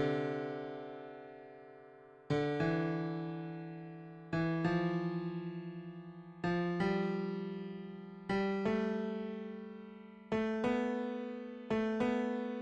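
Slow piano chords, each struck and left to ring and fade, about every two seconds at first and coming closer together near the end.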